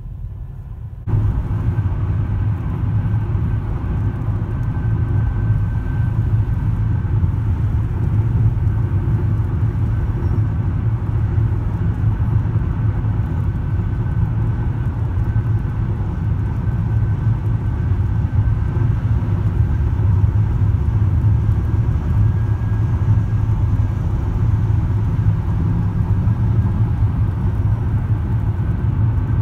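Steady low rumble of road and engine noise inside a moving car on a wet highway. It steps up in loudness about a second in and then holds steady.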